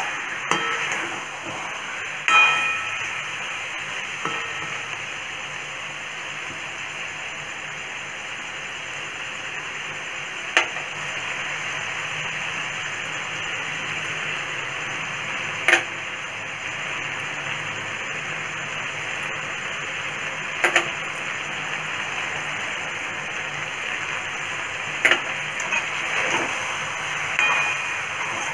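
Chicken and onions sizzling steadily in a metal kadai, with a metal ladle stirring and knocking against the pan every few seconds, a few of the knocks ringing briefly.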